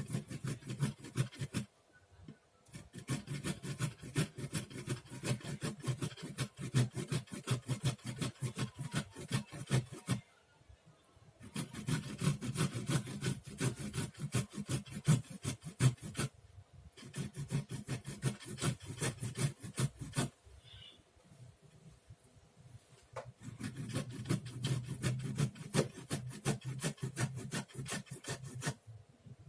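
Peeled fresh ginger root being grated by hand on a grater: quick, even rasping strokes in runs of several seconds, stopping briefly four times.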